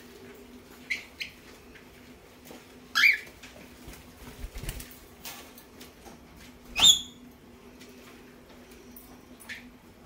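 Cockatiel calling: two faint short chirps about a second in, then two loud rising whistled calls, one about three seconds in and a sharper, higher one near seven seconds.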